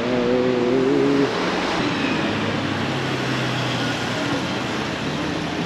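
Road traffic: vehicles running past on a street, with an engine's steady low hum in the middle.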